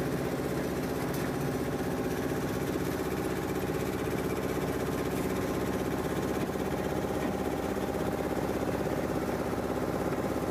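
An engine running steadily at idle, an even, unchanging hum.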